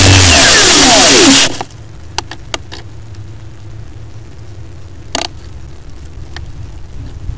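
Model aeroplane's motor winding down after landing: its loud whine falls steadily in pitch and stops about a second and a half in. A faint steady hiss follows, with a few light clicks.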